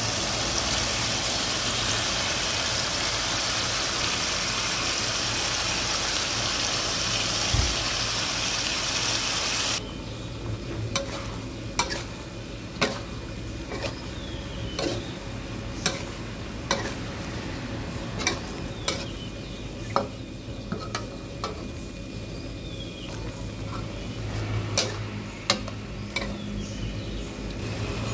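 Pork and tomato wedges sizzling in a hot wok. About ten seconds in, the loud sizzle drops away abruptly, and a metal spatula clinks and scrapes against the wok as it stirs, with sharp strikes at irregular intervals of about one a second.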